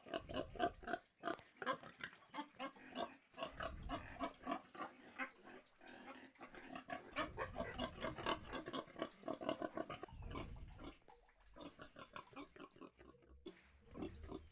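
Domestic pigs grunting, a quick run of short grunts several a second, thinning out for a few seconds past the middle before picking up again near the end.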